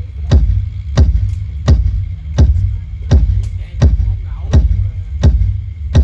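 Heavy kick-drum beat over deep bass played loud through a large PA speaker system, about three beats every two seconds, as in a speaker test demo.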